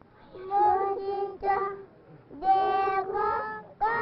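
Children singing a song in steady held notes, phrase after phrase, with short pauses for breath between phrases.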